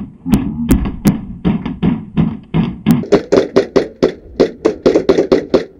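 A rapid run of short knocks and taps, about five or six a second, picking up pace about halfway through, with a few sharp cracks in the first second.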